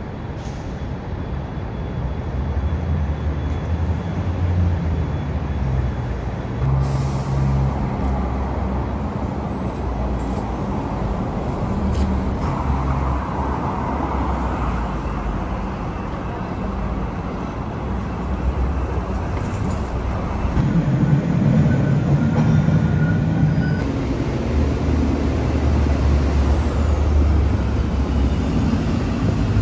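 City traffic with MBTA buses and a truck running past, a steady low engine rumble, and a brief hiss of air brakes a few times.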